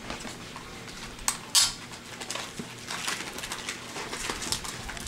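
Card packs and wrappers being handled: light rustling and scattered clicks, with one short, loud rustle about a second and a half in.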